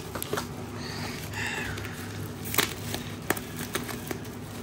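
A wrapped package being opened by hand: light rustling of the wrapping, with a sharp click or snap about two and a half seconds in and another under a second later.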